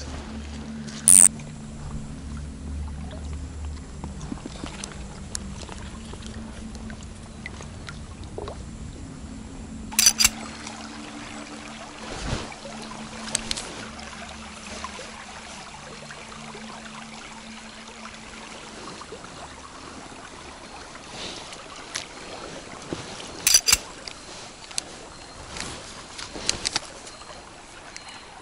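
Shallow river running over a stony bed, a steady rippling hiss, with a low hum under it that fades out about two-thirds of the way through. A few sharp clicks stand out, about a second in, near the middle and near the end.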